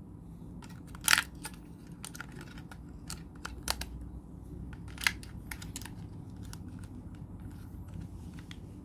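Plastic clicks and rattles as AA batteries are fitted into the battery compartment of a small plastic ear-wax vacuum cleaner, with a sharp click about a second in and more clicks around four and five seconds in.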